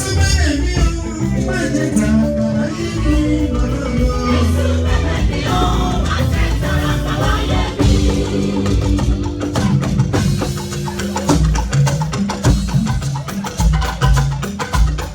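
Music with singing, drums and hand percussion playing steadily.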